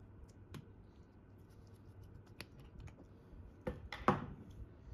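Sparse small clicks and taps of a wristwatch case and small hand tools being handled on a bench mat, with two louder knocks close together near the end.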